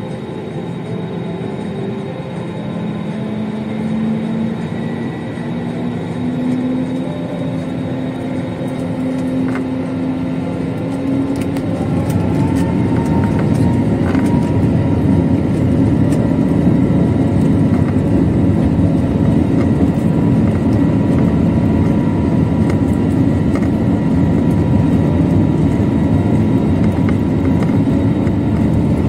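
Airbus A320's jet engines and cabin rumble heard from inside the passenger cabin. The engine whine climbs in pitch, and about twelve seconds in the engines spool up and the noise steps up to a louder, steady roar.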